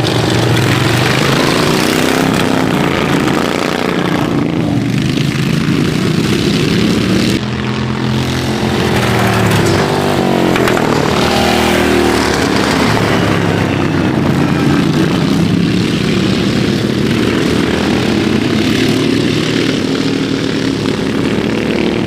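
Several racing lawnmowers' engines running hard around the track, their pitch rising and falling as they pass close by, loudest around the middle.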